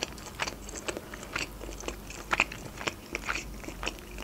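A person chewing a bite of a meat-filled blin (rolled Russian crepe), with irregular short mouth clicks and smacks several times a second.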